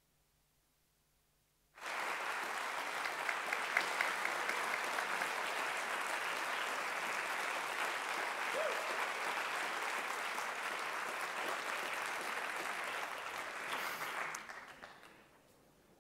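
An audience bursts into applause about two seconds in, after near silence, and keeps clapping steadily before it dies away near the end.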